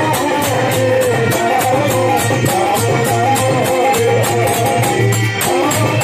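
Kirtan in a Holi folk tune: a man's voice carries a wavering melody through a microphone over a quick, steady beat of jingling percussion.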